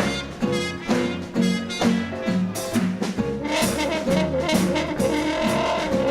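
A live swing dance band playing jazz, with trombones and trumpets carrying the tune over a steady beat.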